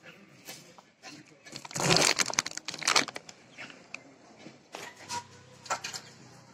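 Crinkling and crunching of potato chips and their packet, in a loud burst of dense crackles about two to three seconds in, then a few lighter crackles.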